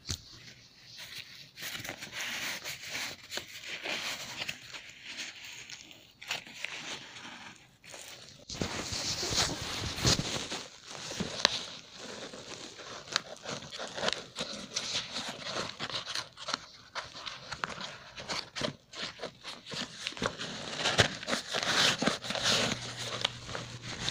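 Crinkling, rustling and scraping with many small clicks as a homemade candy vending machine is handled and its toilet-paper-roll twist mechanism is turned.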